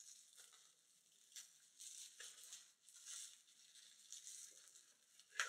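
Faint rustling and crinkling of packaging being handled as a shipping box of beer cans is unpacked, with a few soft taps and a louder rustle near the end.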